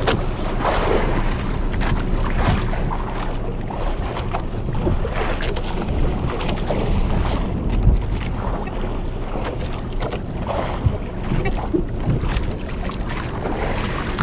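Wind buffeting the microphone and sea water sloshing against a small fishing boat's hull, with a couple of brief knocks in the second half.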